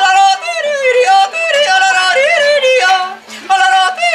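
A woman yodels the refrain of a Tyrolean song, her voice flipping quickly between low and high notes, over a simple acoustic guitar accompaniment.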